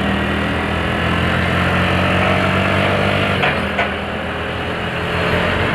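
Motorcycle engine running at low, steady revs, with its note shifting slightly about halfway through, over a rush of road and wind noise.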